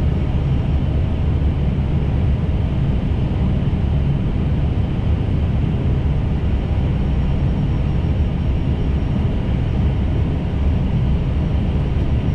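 Steady low rumble of airflow and engines in an Airbus A320 cockpit on short final approach, just before the flare.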